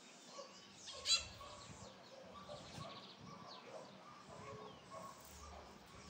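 Several birds calling with short chirps, one louder sharp call about a second in and a quick trill a little later.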